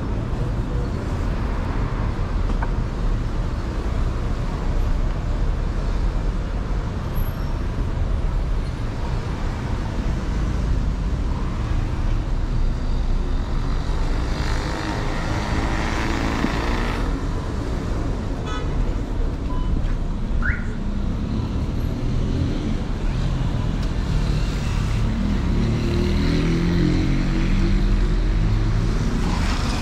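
City street traffic: a steady rumble of cars and other vehicles passing, swelling as one goes by about halfway through. Near the end a heavy engine runs close by.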